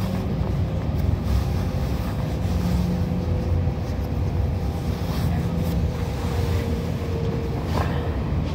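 Passenger train running along the line, heard from inside the carriage: a steady low rumble of wheels and running gear with a faint whine that sinks slightly in pitch, and a short click near the end.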